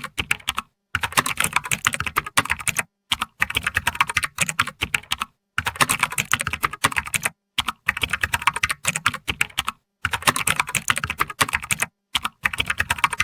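Typing on a computer keyboard: rapid runs of key clicks lasting a second or two, broken by short pauses.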